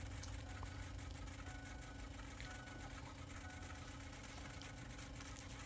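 Faint steady electric hum of a Ford F-350's 6.0 Power Stroke fuel pump priming with the key on, before the engine is cranked.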